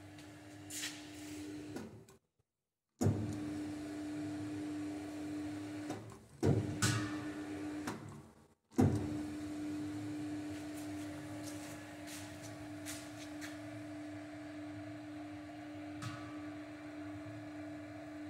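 A Talsa MIX 100P mixer's 1.5 kW three-phase electric motor running with a steady hum. The sound cuts out completely twice, once for nearly a second, and a few sharp knocks come around the middle.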